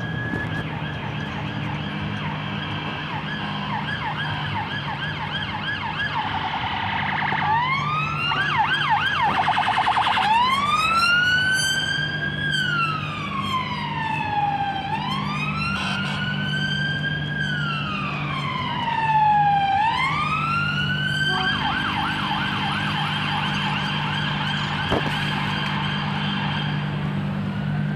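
Emergency vehicle sirens passing. They start on a fast warbling yelp, switch to an even faster yelp, then to a slow rising-and-falling wail for about ten seconds, and go back to the fast yelp near the end. A steady low engine hum of traffic runs underneath.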